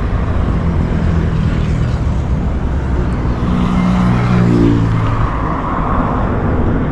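A motor vehicle's engine running nearby: a steady low rumble, with the engine note swelling about four to five seconds in.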